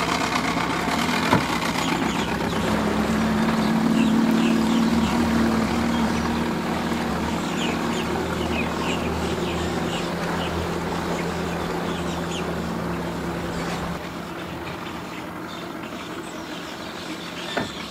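Mercury 115 outboard motor on a small bowrider running in gear at low speed as the boat pulls away. The steady engine note swells about four seconds in, then gradually fades as the boat moves off. Short high chirps sound over it through the middle.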